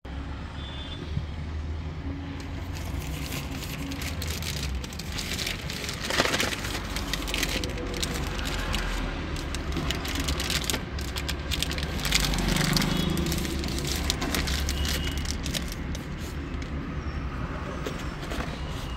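Plastic courier mailer and cellophane wrap crinkling as a boxed smart watch is unwrapped and handled, over a steady low rumble.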